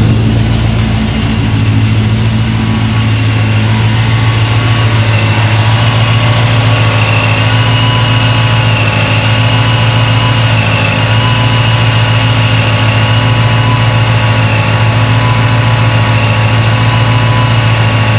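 Supercharged 5.8-litre V8 of a 2013 Shelby GT500, fitted with a Kenne Bell 2.8L liquid-cooled supercharger, longtube headers and a Magnaflow cat-back, idling steadily on its first start after the build. A steady high whine rides over the low, even idle.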